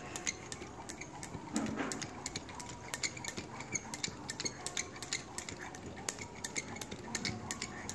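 Skipping rope ticking sharply against the concrete paving on each turn, a quick run of repeated clicks as a child skips barefoot.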